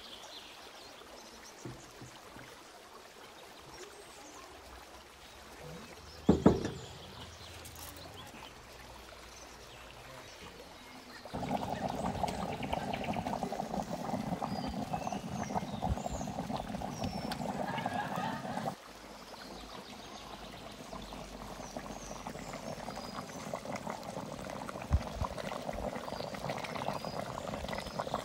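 A single loud knock about six seconds in, then liquid pouring in two long spells from about eleven seconds on, the second gradually growing louder.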